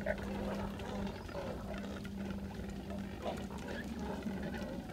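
A colony of double-crested cormorants calling from the trees, many calls overlapping, sounding like dinosaurs. A steady low hum runs underneath.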